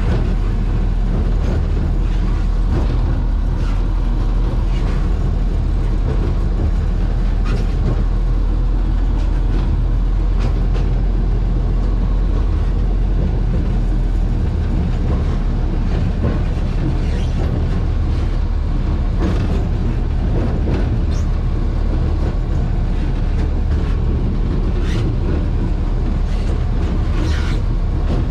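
Cummins HBI-600 naturally aspirated six-cylinder diesel of a 1949 GE diesel-electric locomotive, running steadily, heard from the cab. Scattered short clicks and knocks sound over it.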